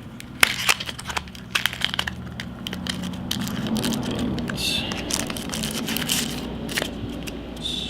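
Product packaging being handled and crinkled, with scattered sharp clicks and crackles.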